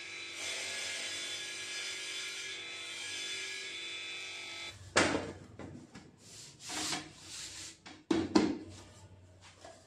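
Table saw running as a thin board is ripped along the fence, a steady motor-and-blade sound that cuts off suddenly about halfway through. Then sharp knocks and rubbing as the cut wooden strip is handled and laid on the metal saw table.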